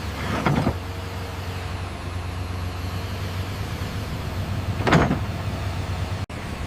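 Heavy vehicle engine running with a steady low drone, with two brief swelling whooshes, one about half a second in and one about five seconds in, and an abrupt break near the end.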